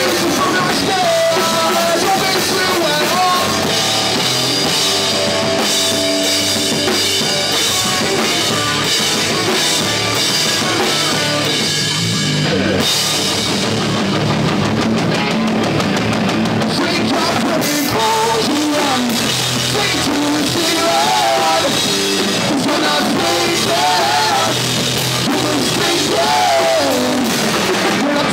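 Live rock band playing loud and continuous: drum kit, electric guitars and bass, with a singer's vocals.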